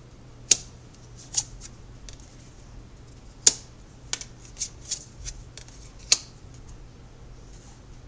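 Tarot cards being handled and laid out on a table: a series of sharp, crisp snaps and clicks, about eight in all, irregularly spaced, the loudest about half a second, three and a half and six seconds in.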